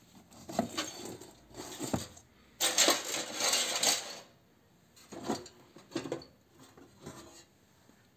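Thin embossed aluminium reflector sheet from scrapped light fittings rattling and crinkling as it is handled among the scrap. The loudest clatter lasts about a second and a half near the middle, with a few shorter clatters before and after.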